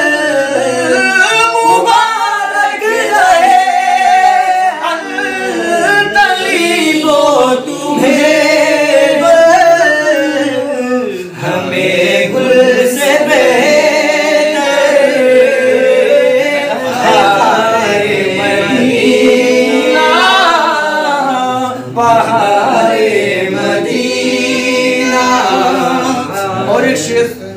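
A small group of male voices singing an Urdu naat together, unaccompanied, in long melodic lines.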